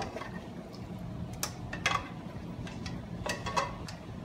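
Spatula scraping and knocking against a heavy pan as cooked ground beef with peas is scraped out, with a few separate sharp clinks.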